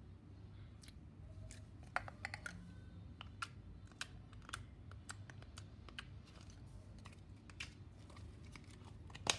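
Slime being squeezed and stretched by hand, giving irregular small clicks and pops.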